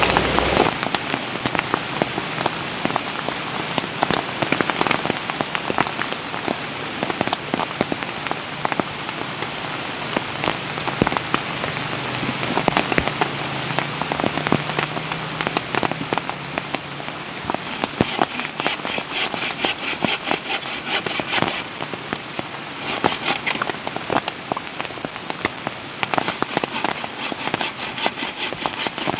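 Steady rain falling, with many separate drop hits. About two-thirds of the way in, short spells of rhythmic rasping strokes join it.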